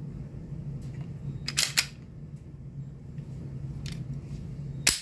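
Metallic clicks of a Stoeger STR-9S Combat pistol's slide and action as it is handled and worked: two sharp clicks about a second and a half in, a fainter one near four seconds, and a loud one near the end. A steady low hum runs underneath.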